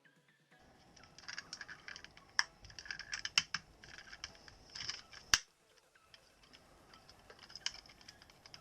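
Plastic puzzles and their packaging being handled: a crackling, rustling stretch with a few sharp clicks, then quieter with only light clicks in the second half.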